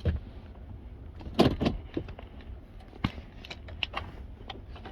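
Light plastic clicks and knocks from the parts of a gauge cluster being handled and fitted together, with the loudest cluster of clicks about a second and a half in and a few single clicks after it.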